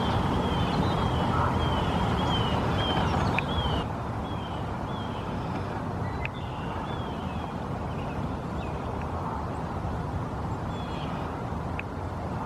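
A bird's short, down-slurred calls, repeated about twice a second and then more sparsely after a few seconds, over a steady low rumble.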